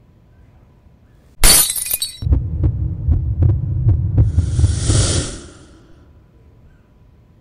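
Intro sound effects: a sudden crashing hit about a second and a half in, then a loud throbbing low pulse with a run of sharp clicks and a swelling whoosh, fading out after about five seconds.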